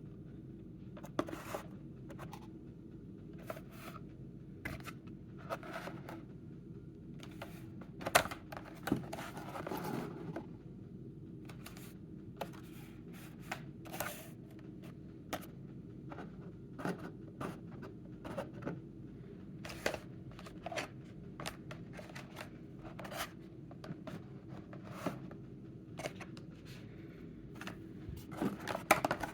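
Carded Hot Wheels packages being handled and unpacked by hand: irregular clicks, scrapes and rustles of cardboard and plastic blister packs, over a steady low hum.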